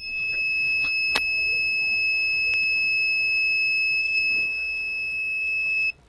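A 5 V buzzer in a home-made solar soil-moisture alarm sounds a steady, continuous high-pitched tone, with a couple of faint handling clicks. The tone cuts off suddenly near the end, when the iron-nail probe is pushed back into moist soil and the circuit sees moisture again. The buzzer sounding signals dry soil or an open probe.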